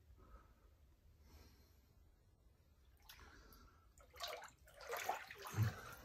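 Water sloshing and splashing as someone wades through shallow floodwater over a house floor, in a few bursts in the second half, with a dull thump near the end.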